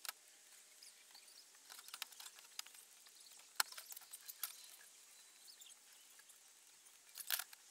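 Faint scattered clicks and light taps of laminate flooring boards, a tape measure and a pencil being handled while a cut line is measured and marked. The sharpest clicks come about three and a half seconds in and again near the end.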